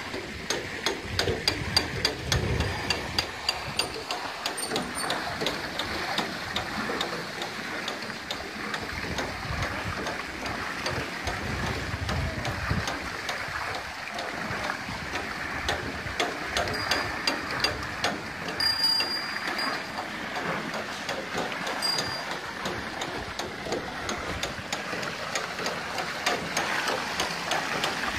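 Persian wheel (rehat) water lift turning: its wooden gearing and chain of buckets knock and clatter, at about two knocks a second, over the splash of water pouring from the buckets into the trough.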